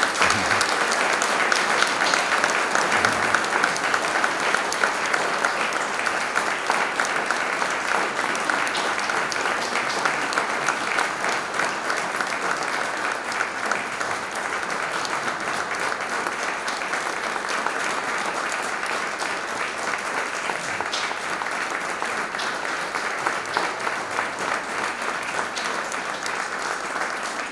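Audience applauding: sustained clapping from a seated crowd, strongest in the first few seconds and easing a little later on.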